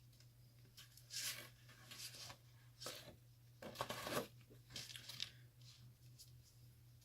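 Heavy textured cardstock being scored and handled on a scoring board with a bone folder: about six short scraping rustles of paper.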